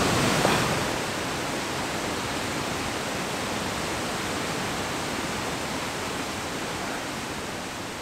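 Waterfall's steady rush of falling water, a constant even hiss, easing slightly near the end.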